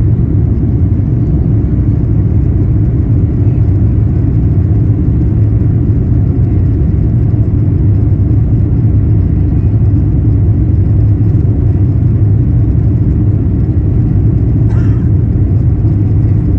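Cabin noise of a British Airways Airbus A350 during takeoff: the steady, loud, low rumble of its Rolls-Royce Trent XWB engines and the airflow, heard from inside the cabin. A faint brief rattle comes near the end.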